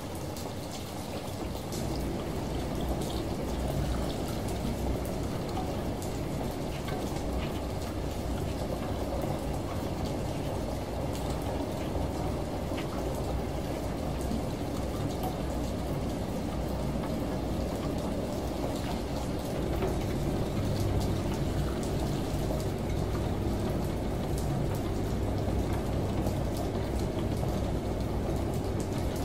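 Layered ambient mix of steady rain patter and running shower water over a low, even washing-machine hum, with scattered small drip ticks.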